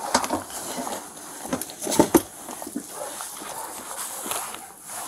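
A feral dog cornered in a dog house making short vocal sounds, among repeated knocks and scrapes from a catch pole being worked against the dog house.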